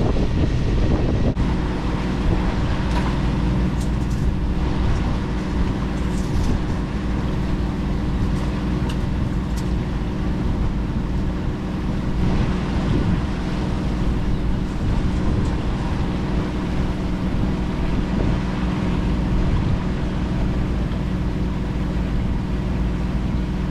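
A sailboat's engine running steadily while motoring under way, with wind buffeting the microphone.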